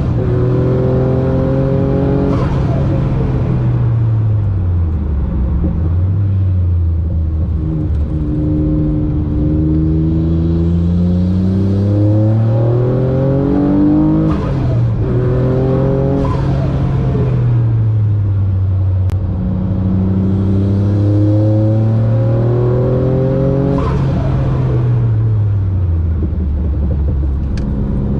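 Noble M12 GTO-3R's 3.0-litre twin-turbo Ford Duratec V6, heard from inside the cabin under track driving. It accelerates hard with rising pitch, then drops in pitch on lifts, braking and downshifts, several times over.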